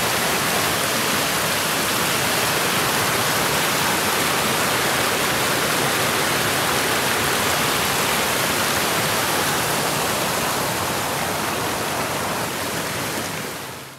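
Whitewater rapids of a small forest creek rushing over rocks and fallen logs, a loud, steady rush of water that eases slightly near the end and then cuts off.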